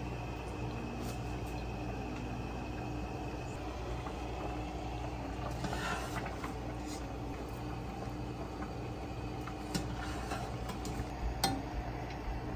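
Light clinks and clatters of kitchen utensils and dishes over a steady low hum. The sharpest clink comes near the end.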